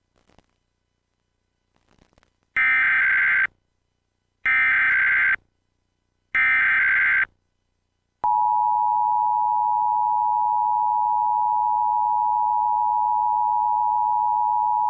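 Emergency Alert System test signal: three short bursts of warbling SAME header data tones about two seconds apart. Then, about eight seconds in, the steady two-tone EAS attention signal starts and holds.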